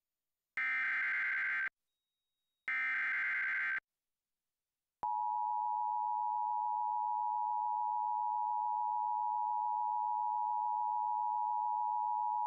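Emergency Alert System broadcast tones: two harsh, buzzy SAME digital header bursts about a second long each, a second apart, then after a short pause the steady two-tone attention signal starting about five seconds in. The tones herald a National Weather Service special marine warning.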